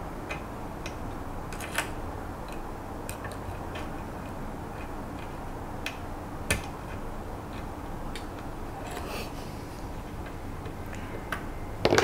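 Lock picking on a two-pin practice pin-tumbler lock: a steady low hum with sparse, irregular metallic clicks from the pick and tension wrench working the pins. A few clicks stand out, and a louder cluster comes near the end.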